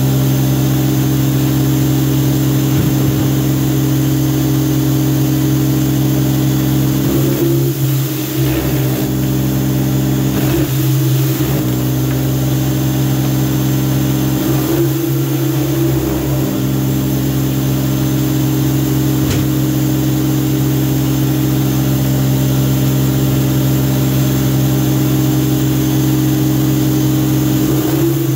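Greenworks 2000 psi electric pressure washer running steadily with a loud, even motor-and-pump hum under the hiss of water spraying from its surface cleaner as plastic growing trays are washed. The hum wavers briefly a few times.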